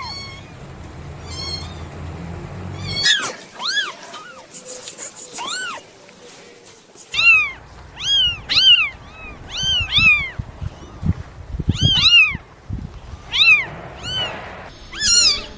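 Kittens meowing in many short, high-pitched cries, several at a time overlapping in places.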